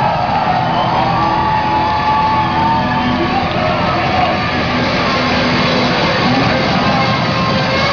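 Live rock band playing loud, dense amplified music, with the crowd shouting along.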